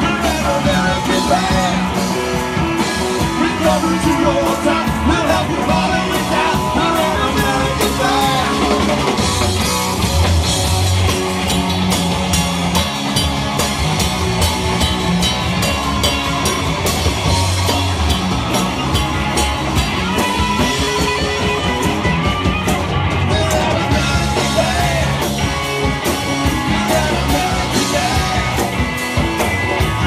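A live rock trio playing loud, fast rock: a drum kit with cymbal crashes throughout, amplified instruments and a sung vocal line.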